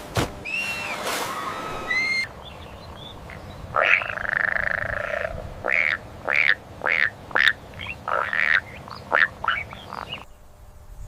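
An animal calling repeatedly: one longer call, then a quick series of short calls.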